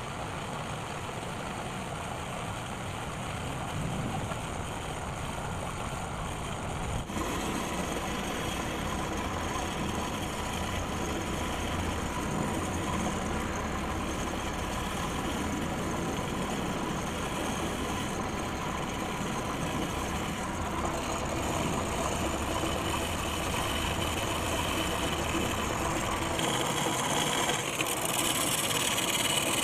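Homemade belt-driven lathe running, its tool cutting a metal disc, a steady machine sound with cutting noise. The sound changes abruptly about seven seconds in, and it grows louder and brighter near the end.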